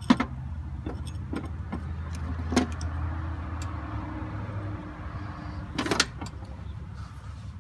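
Hands working at a John Deere 4440's air-conditioning compressor: scattered light clicks and knocks, with a louder clatter about six seconds in, over a low steady hum.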